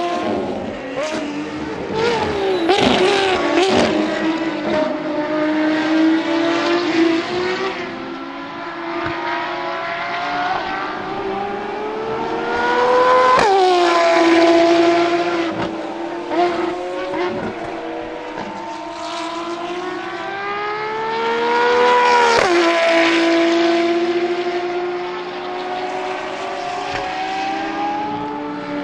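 Ferrari FXX K Evo naturally aspirated V12 race cars at full throttle, the engine note climbing steadily in pitch, then falling sharply twice as the cars shift up or blast past. Short crackles sound off-throttle near the start.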